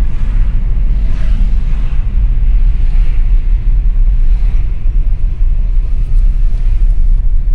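Car driving along a city street, heard from inside: a loud, steady, low rumble of road and engine noise.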